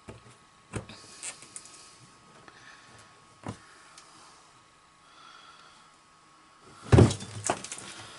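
Occasional sharp clicks and knocks of hand tools and parts being handled, with a louder clatter of several knocks about seven seconds in.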